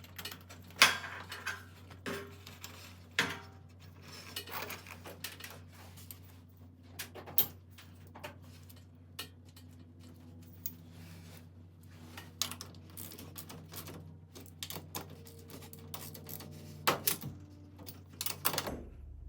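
Irregular metallic clinks, taps and knocks of wrenches and hardware as a garage door's cable drum is fitted on the torsion shaft and its pinch bolts are tightened. The sharpest knock comes about a second in and there is a cluster near the end.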